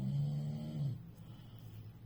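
Snoring: one long, low, pitched snore in the first second, falling away at its end, then a quieter breath.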